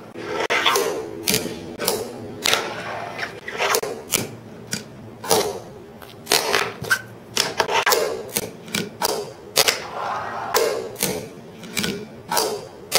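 Fingerboard clacking on a tabletop and an acrylic rail: repeated sharp, irregular clacks as the board's deck and wheels land, pop and hit, with rolling and scraping between them.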